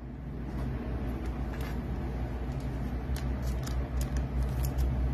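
Low steady mechanical rumble, with a few faint light clicks of trading cards being handled and set down.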